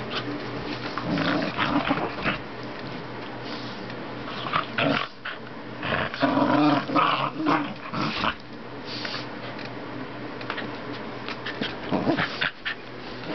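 Two small dogs play-growling in irregular bursts as they wrestle, loudest in the middle.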